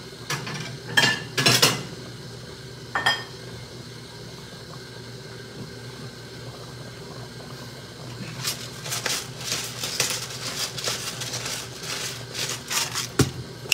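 Kitchenware clinking and clattering: a few sharp knocks of dishes in the first three seconds, then a longer run of rapid clinks of a utensil against a pan and bowl from about eight seconds in, as food is scooped out. A steady low hum runs beneath.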